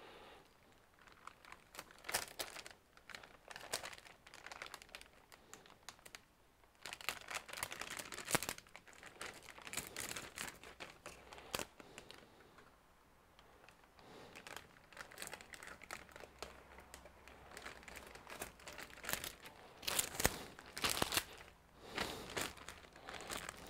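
A plastic anti-static bag crinkling and crackling as it is handled with gloved hands, in irregular bursts that come and go, loudest around twenty seconds in.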